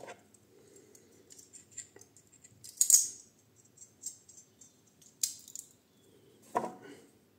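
Small handling noises from a safety razor and its blades: light clicks and rattles with a few short rustles, the loudest about three seconds in.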